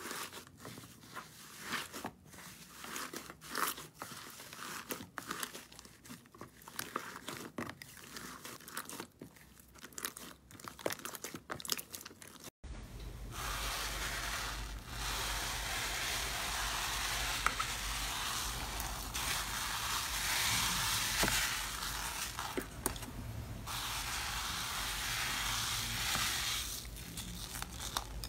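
Hands squeezing and kneading a thick slime, giving many small sticky crackles and pops. About halfway it cuts to a metal spoon stirring a stringy, fluffy slime in a bowl: a steady crackly hiss with a low hum under it.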